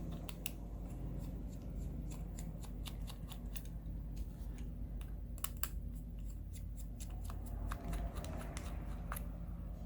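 Small Phillips screwdriver backing out tiny screws from a smartphone's inner frame: scattered light clicks and ticks of the metal tip and screws, over a steady low hum.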